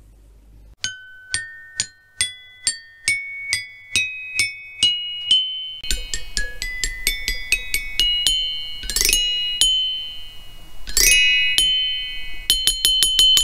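Closing jingle on glockenspiel-style chimes: single ringing notes climb a slow upward scale about twice a second, then come quicker, with two fast upward glissandos and a rapid run of repeated notes near the end.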